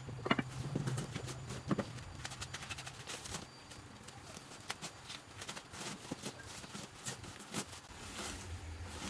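Kitchenware being unpacked and handled: a rapid, irregular string of light clicks, taps and rustles, busiest in the first couple of seconds.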